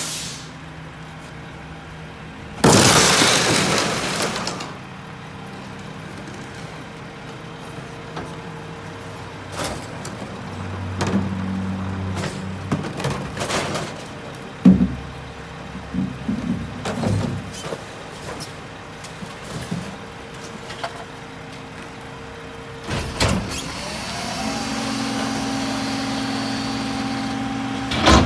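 Heil split-body rear-loader garbage truck: a loud air-brake hiss about three seconds in that fades away, then the engine idling under the clanks and clatter of recycling bins being tipped by hand into the hopper. Near the end the engine note steps up and holds steady as the hydraulic packer is engaged.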